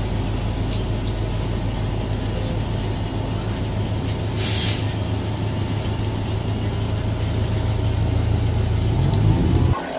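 Cabin noise of a Los Angeles Metro city bus under way: a steady low engine and drivetrain drone, with a short hiss of air, typical of the air brakes, about four and a half seconds in. The drone swells near the end and then cuts off abruptly.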